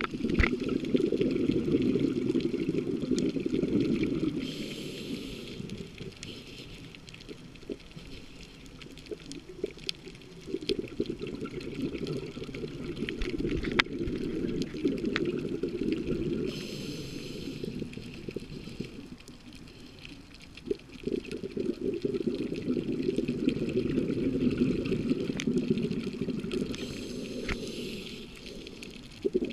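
Scuba diver breathing through a regulator, heard underwater: long bubbling rumbles of exhaled air alternate with short hisses of inhalation, about three breaths. Scattered sharp clicks run through it.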